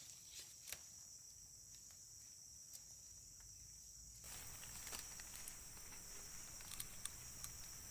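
Faint, steady, high-pitched insect chorus with scattered small ticks and taps. About four seconds in, a soft hiss joins it.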